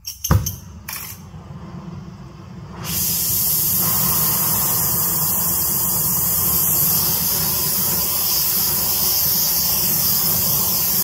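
Water spraying onto freshly welded, still-hot cast iron to shock-test the weld: a loud steady hiss of spray and steam that starts about three seconds in. A few sharp knocks come just before it.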